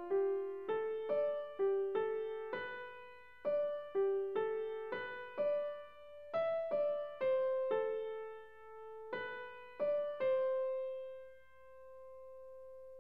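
Background piano music: a gentle melody of single struck notes, about two a second with brief pauses, ending on a long held note that slowly fades.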